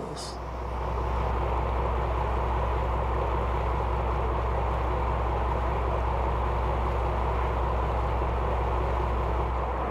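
Fishing boat's engine running steadily underway: a low hum beneath a rushing noise of water and wind, growing louder about a second in.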